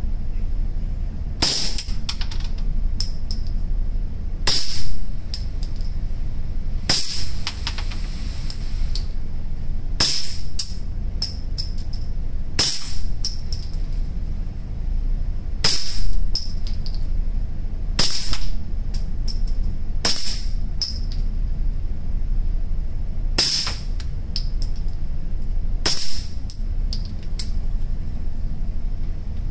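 Suppressed Grand Power Stribog SP9 A3 9mm carbine firing 147-grain rounds as about ten single shots, paced two to three seconds apart, with smaller clicks between shots. This is a test-fire after an extractor swap meant to cure its failures to extract and eject. A steady low hum runs underneath.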